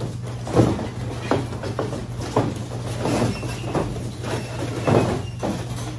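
Boxing-glove punches landing at an irregular pace as several pairs spar, the loudest about half a second in and near five seconds in, over a steady low hum.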